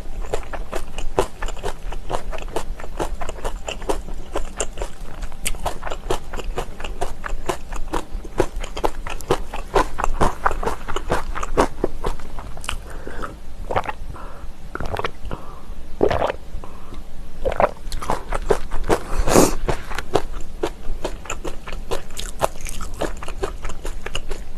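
A person chewing and crunching mouthfuls of kimchi with rice and seaweed. It is a quick, continuous run of crisp bites and chews, with a few louder crunches in the second half.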